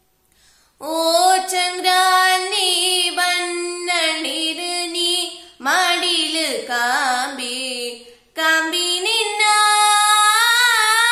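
A young woman singing solo without accompaniment, in long held notes with a wavering pitch. She starts about a second in after a brief silence, and her phrases break off twice for breath, near the middle and about two-thirds through.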